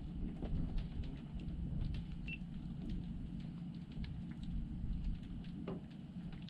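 Steady low rumble of wind on the microphone and water lapping around a floating wooden fish cage, with scattered faint ticks and taps.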